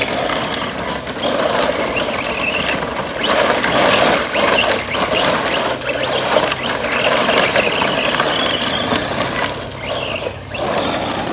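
Radio-controlled truck driving fast on gravel: its motor whines up and down in pitch over several passes as it speeds up and slows, with its tyres crunching and spraying gravel.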